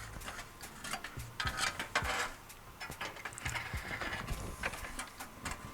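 Irregular clicks, knocks and scraping of a plastic radiator cooling fan assembly being lowered and seated into place beside the radiator. The loudest knocks come about two seconds in and again near four seconds.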